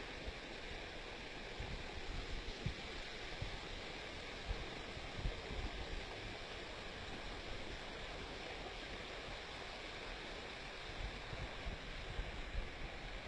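Muddy stormwater runoff rushing down an unpaved dirt street: a steady, continuous rush of flowing water, with occasional low thumps on the phone microphone.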